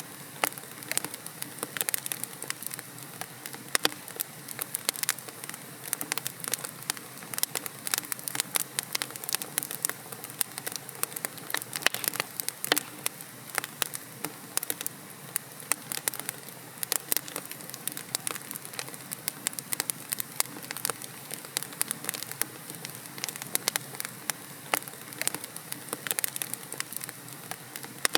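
Wood fire crackling in a fireplace: a steady soft hiss of burning logs with many sharp, irregular pops and snaps, several a second.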